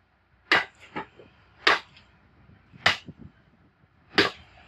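Five sharp chopping knocks about a second apart, with quiet between them.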